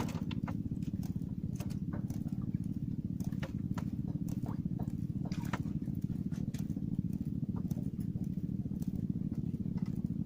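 A steady, fast low pulsing, like a small motor running, with scattered light clicks and taps over it.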